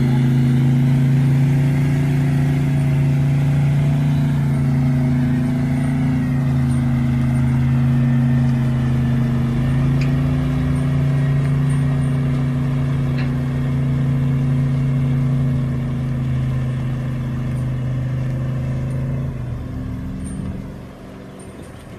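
Engines of a Toyota Land Cruiser 79 pickup and the 34-ton truck it is towing, running steadily under load as they pull through mud. The drone holds level, then fades away over the last couple of seconds.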